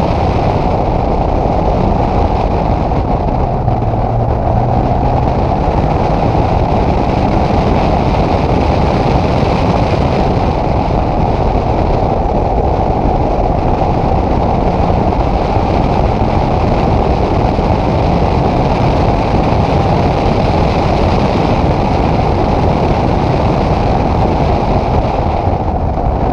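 Caterham 7's 1.6-litre Rover K-series four-cylinder engine driving hard up a hill climb course, heard from an onboard camera on the open car, its note drifting up and down under a steady loud rush of noise.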